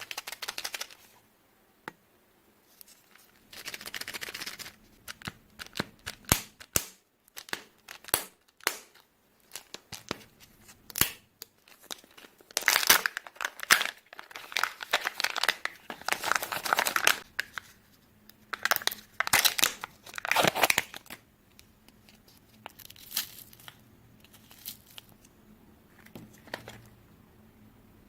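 Wrappers of chocolate surprise eggs being torn open and crinkled in irregular bursts, with occasional sharp clicks.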